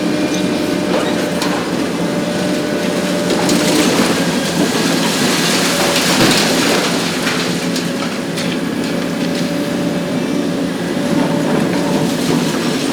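Hitachi ZX 870 XXL long-front demolition excavator's diesel engine running steadily while its hydraulic shear crushes concrete, with debris crackling and clattering down, heaviest around the middle.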